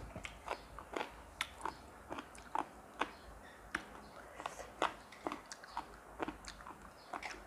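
Close-up sounds of a person chewing and crunching mouthfuls of spicy seafood papaya salad: a run of short, crisp, irregular crunches, about two or three a second.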